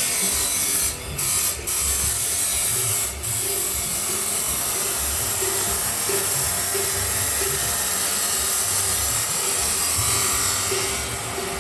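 Angle grinder cutting stainless steel pipe: a steady, high-pitched hiss of the disc in the metal, broken by three short drops about one, one and a half, and three seconds in.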